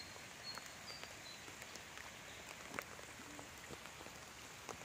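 Light rain falling, with scattered drops ticking on nearby surfaces. A few faint, short high chirps sound in the first second or so.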